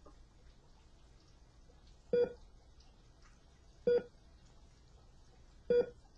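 Three short electronic beeps, evenly spaced about two seconds apart.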